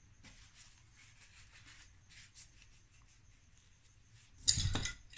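Wooden dotting tools handled off-camera: faint soft rustles, then a short knock and clatter about four and a half seconds in.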